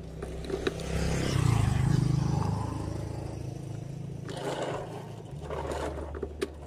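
Key clicking and scraping in the key switch of a Yamaha NMAX scooter as it is turned, with a vehicle engine's low rumble in the background that swells and fades about two seconds in.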